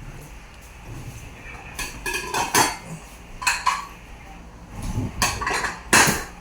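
Metal dishes and utensils clinking and knocking in a series of sharp hits, some ringing briefly, the loudest near the end.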